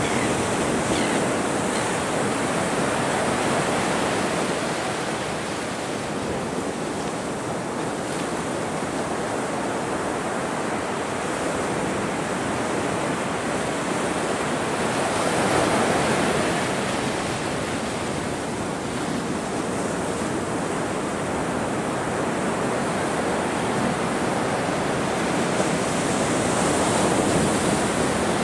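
Ocean surf: waves breaking and washing in as a continuous rushing noise, swelling louder three times, roughly every ten seconds as each wave comes in.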